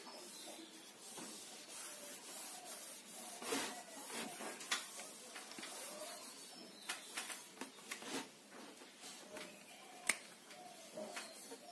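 Soft rubbing of a cloth glove wiping marker writing off a whiteboard, in faint strokes, with a few sharp clicks, the sharpest near the end.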